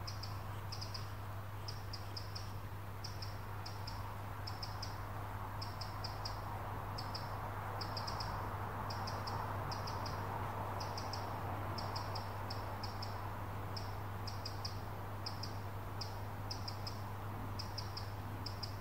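High-pitched chirping, short chirps in small groups repeating about twice a second, over a steady low hum and a soft rushing noise that swells through the middle.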